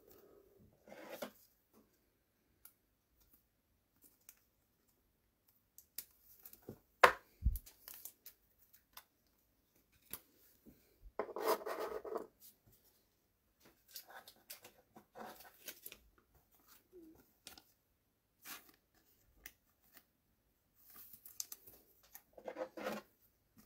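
Trading cards and their packaging being handled: scattered scraping and rustling, with a sharp click and a low thump about seven seconds in.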